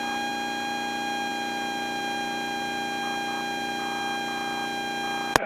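Steady hum and whine on a light aircraft's intercom audio feed: several fixed tones held without change, with a faint pulsing pattern underneath. A sharp click comes just before the end as a radio transmission opens.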